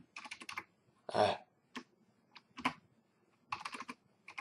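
Bursts of typing on a computer keyboard: quick runs of key clicks with short pauses between them. About a second in comes one short, louder vocal noise.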